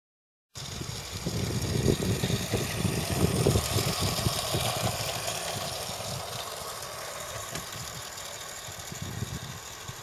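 Tri-ang/Novo Big Big Blue Flier Hymek toy diesel locomotive running along garden track: its motor running and wheels rattling over the rails. It is loudest as it passes close and fades as it moves away.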